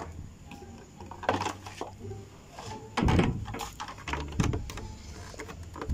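Plastic side cover panel of a Yamaha RXZ motorcycle knocking and clicking against the frame as it is handled and pushed into place, with the loudest clatter about three seconds in.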